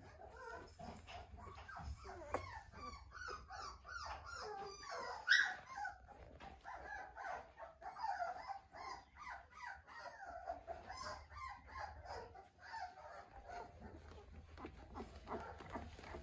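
Newborn Australian Shepherd puppies whimpering and squeaking in many short, rapid cries, with one louder, higher squeal about five seconds in.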